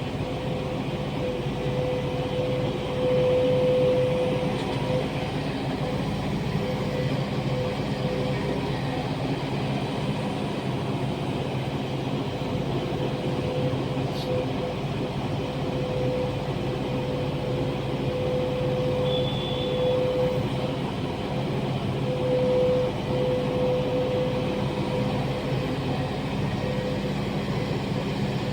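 Volvo excavator's diesel engine running steadily, with a whine that swells louder and fades several times as the machine works.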